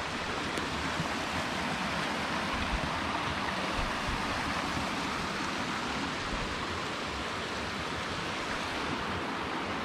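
Steady rushing of stream water flowing over rocks, an even unbroken hiss throughout.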